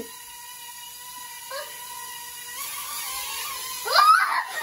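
Small toy UFO drone's propellers whining at a steady pitch. Near the end, a young girl gives loud, excited squeals that rise in pitch.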